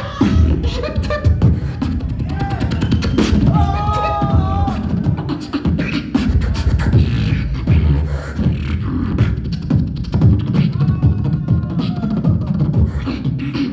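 Beatboxing into a handheld microphone: a fast, continuous run of deep bass kicks and sharp clicks, with a short pitched vocal line about four seconds in.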